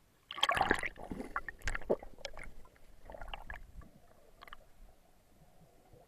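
Water splashing and gurgling close up as a swimmer ducks under and pulls himself down an anchor chain: a loud burst of splashes about half a second in, then scattered splashes and bubbling that die away after about five seconds.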